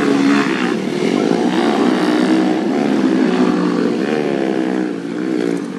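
Racing motorcycle engines revving, several at once, their pitch rising and falling as the riders open and close the throttle.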